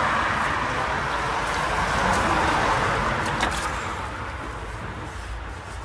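A passing car's road noise: a steady rush that fades away over a few seconds.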